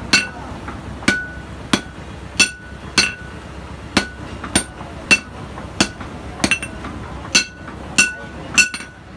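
Hand hammer striking a red-hot steel cleaver blade on an anvil: sharp ringing strikes at an even pace of about one every two-thirds of a second, a few of them in quick pairs.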